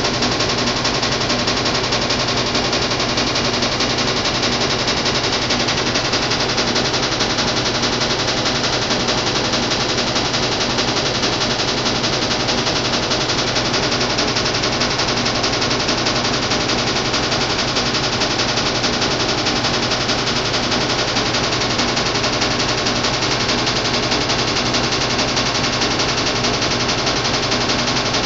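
Washing machine running with a loud, continuous rapid rattle, like fast repeated knocks that never let up.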